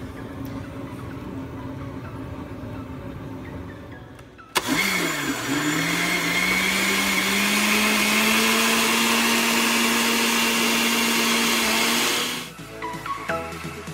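Oster countertop blender motor switched on about four and a half seconds in. Its pitch dips, then climbs as it spins up through a thick shake, and it runs at a steady whir until it shuts off abruptly near the end.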